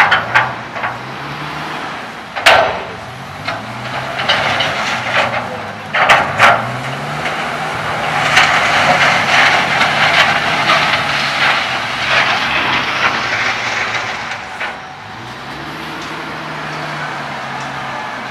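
Heavy truck engine running, its pitch rising and falling several times, with a few sharp clanks. A long rushing noise in the middle.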